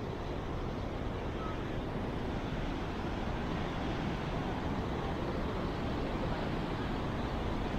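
Steady rushing roar of water from a river gorge and waterfall below, an even noise without pitch or rhythm.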